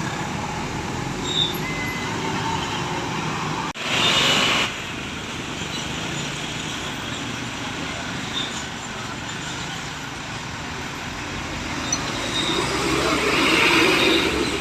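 Steady roadside traffic with vehicles going past. About four seconds in there is a sudden loud rush of noise lasting about a second, and near the end a passing vehicle swells to the loudest point.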